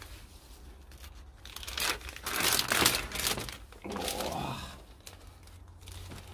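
Plastic packet of sliced prosciutto being torn open by hand, the film crinkling, in two spells: a longer one about two seconds in and a shorter one about four seconds in.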